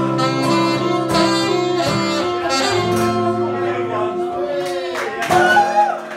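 Live acoustic guitar strumming chords under a saxophone playing long held notes, the instrumental close of a pop song, with a few loud final strums about five seconds in.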